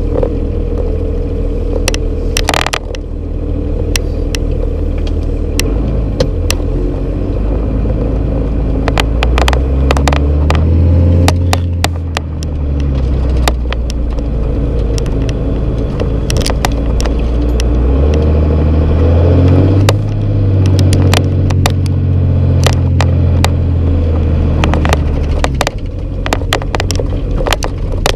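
1997 Dodge Ram's 5.9 Cummins inline-six turbodiesel heard from inside the cab while driving off. The engine drone climbs under acceleration and drops back a couple of times. Many sharp clicks and rattles from the cab sit over the drone.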